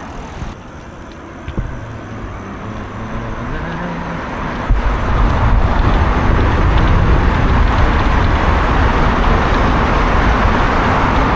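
Road traffic noise on a highway, growing louder, with a heavy low rumble that sets in suddenly about five seconds in and holds steady.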